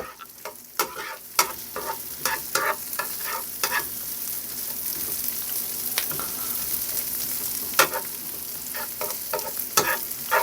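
Onion sizzling in hot oil in a pan, with a spatula stirring and scraping against the pan in irregular clicks and knocks over a steady hiss.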